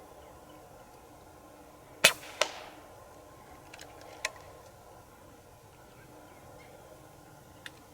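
A single sharp crack from an AGT Uragan 2 PCP air rifle firing, followed about half a second later by a second, weaker crack, then a few faint clicks. The shot is thought to have missed.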